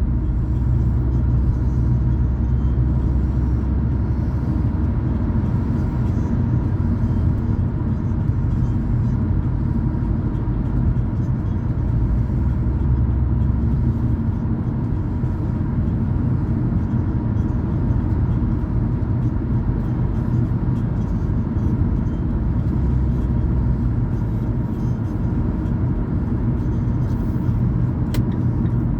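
A car driving along a road: steady engine and tyre rumble.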